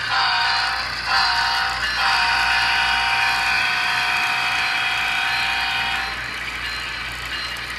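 Sound-equipped HO-scale CSX diesel locomotive model sounding its multi-note chime horn: a blast, a short blast, then a long blast of about four seconds, the end of a long-long-short-long grade-crossing signal. The horn stops about six seconds in, leaving a steady hiss of running sound.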